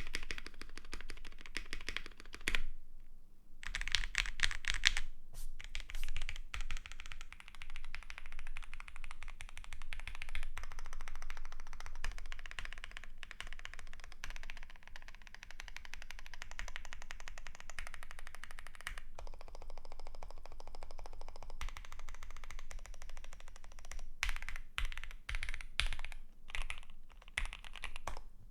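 Fast, continuous typing on a QK65 custom mechanical keyboard with lubed Gateron Box Ink Pink switches, an FR4 plate and GMK Pixels keycaps: dense key clacks, with a short pause about three seconds in.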